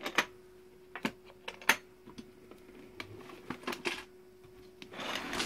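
Latches of a hard equipment case snapping open and the case being handled and opened: a few sharp clicks and knocks spread out, with a short rustle near the end. A faint steady hum runs underneath.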